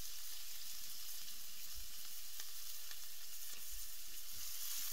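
Diced onions sizzling in hot oil in a stainless steel frying pan: a steady frying hiss with a few faint pops.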